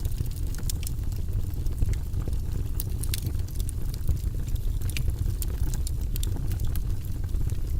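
Wood fire burning in a fireplace, crackling with frequent small, irregular pops over a low, steady rumble.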